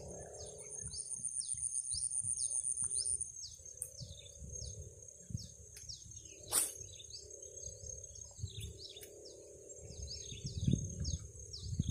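A bird calling over and over in short, quick falling notes, about two a second.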